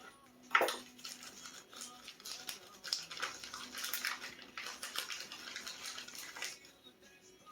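A single metal clink about half a second in, then rapid, dry scraping and scratching for about five seconds that stops suddenly: hand-cleaning of a diesel engine block's cylinder bore and sleeve seat, clearing out ice and debris before the wet sleeve goes in.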